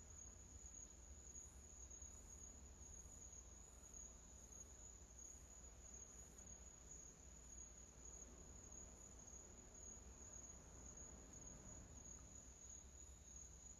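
Near silence: faint, steady high-pitched cricket chirring over a low hum.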